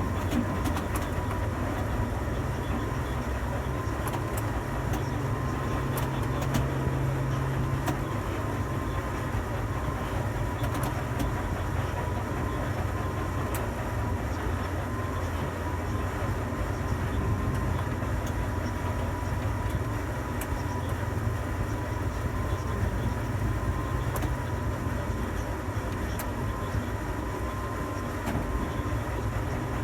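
Tower crane machinery running: a steady low rumble with a faint, steady high whine.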